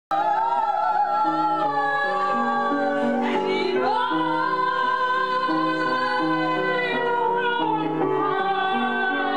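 Women singing together with an upright piano accompaniment, the piano playing a repeating pattern of notes under a held sung melody with vibrato; it cuts in abruptly at the start.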